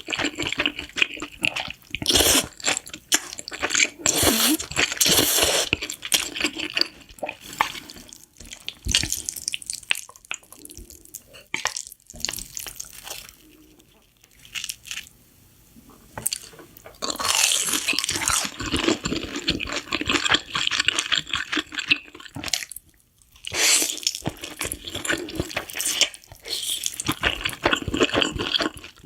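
Close-miked slurping and chewing of noodles: wet mouth sounds in dense runs, with a quieter stretch about halfway through.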